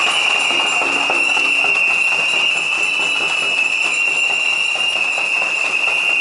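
A protest noise barrage: many plastic whistles blown together in one loud, steady, shrill tone, over the rattle and jingle of hand-shaken noisemakers.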